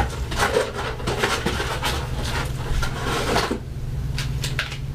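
Rustling and crinkling of plastic lure packets being dug out of a shipping box and handled, dense for about the first three and a half seconds, then a few scattered clicks.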